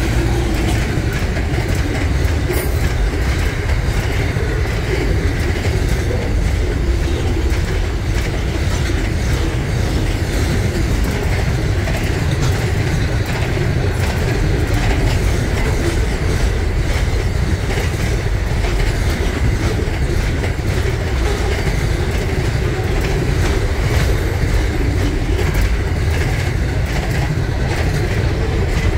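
Container wagons of an intermodal freight train rolling steadily past: a continuous low rumble of steel wheels on rail, with wheels clicking over the rail joints.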